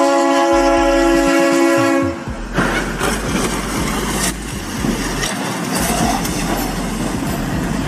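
Locomotive air horn blaring a steady chord, cutting off about two seconds in. A loud crash and a continuous grinding, scraping din follow, with sharp bangs, as the train strikes a tractor-trailer on the crossing and pushes it along the track.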